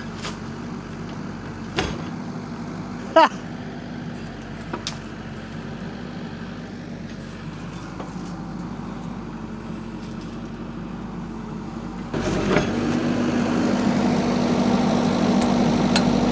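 Rippa R32 mini excavator's diesel engine running steadily, with a few short clicks in the first few seconds. About twelve seconds in, the engine gets clearly louder and stays up, as if revved.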